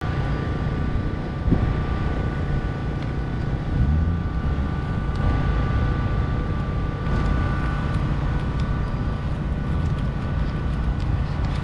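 Steady rumble of a moving vehicle, engine and road noise, with a faint steady whine above it.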